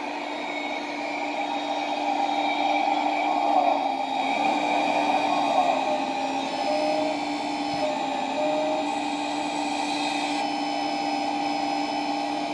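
Hydraulic RC excavator running: the electric hydraulic pump's whine mixes with the simulated diesel engine from a Servonaut SMB sound unit through its small speaker while the upper structure slews. The tone changes a few times as the controls are worked.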